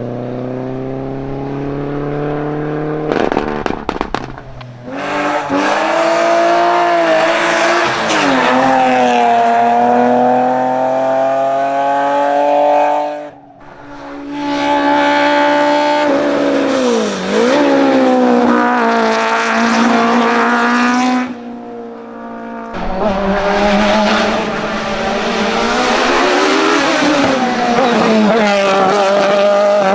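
Hillclimb race cars at full throttle, their engines revving up and dropping back as they shift through the gears, with some tyre squeal. Several runs follow one another, one engine note giving way abruptly to the next.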